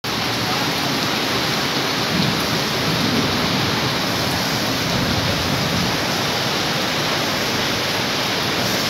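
Heavy rain pouring down steadily, mixed with the rush of floodwater flowing across the ground.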